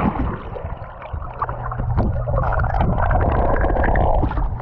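Hot tub jets running: water churning and bubbling over a steady low rumble.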